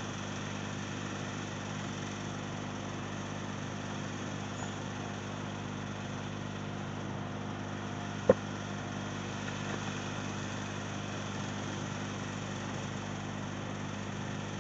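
Steady low background hum with faint steady tones, and one short sharp click about eight seconds in.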